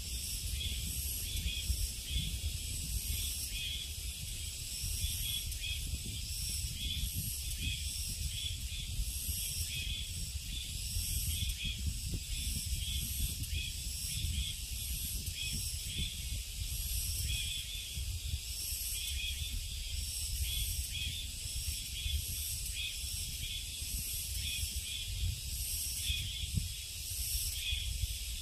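Forest insects chirping in steady, evenly repeating high pulses, over a low, fluctuating rumble.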